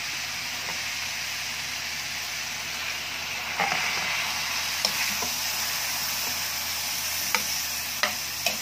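Sliced squash and chayote with ground beef sizzling in a wok as a metal spatula stirs them. The hiss of frying is steady, and the spatula clinks and scrapes against the pan five times in the second half.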